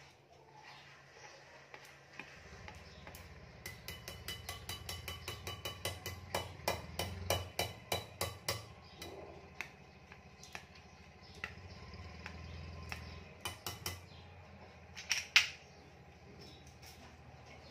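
A wire whisk and a spatula tapping and scraping against a mixing bowl as thick chocolate cake batter is knocked out into a round aluminium cake tin. A run of quick clicks comes from about four to nine seconds in, then scattered taps and one louder knock near the end.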